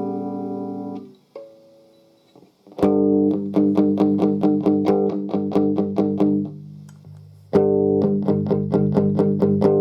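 Electric guitar played through a combo amplifier. A held chord dies away about a second in, a few soft notes follow, then chords are strummed in a steady rhythm of about four strokes a second. The strumming breaks off for a moment and starts again near the end.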